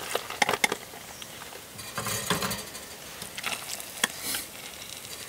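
Eating utensil clinking and scraping against a bowl during a meal, in a few scattered light clicks.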